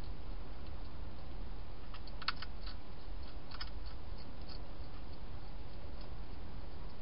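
A hedgehog eating, heard as a few scattered small crunching clicks, the clearest about two and a half seconds in, over a steady low hiss.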